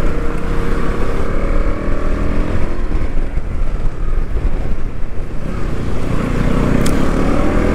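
Motorcycle engine running on the move, with heavy wind rumble on the microphone. The engine note eases off slightly early on and climbs again near the end as the bike accelerates.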